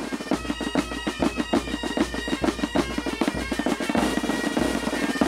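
Background music with a quick, driving drum beat, a pulsing bass and held instrument notes.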